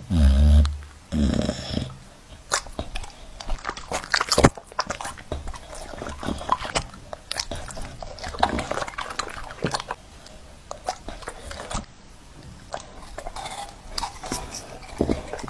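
A dog making many short clicking and snapping sounds, like biting and chewing, with a louder low sound in the first second or so.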